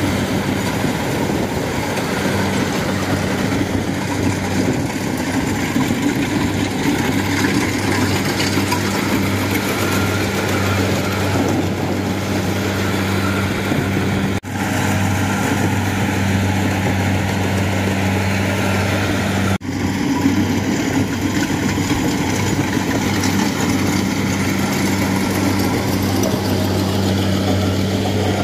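Kubota DC-70 Plus rice combine harvester running steadily under load, its diesel engine a constant low hum over a dense mechanical din. The sound drops out briefly twice, about 14 and 20 seconds in.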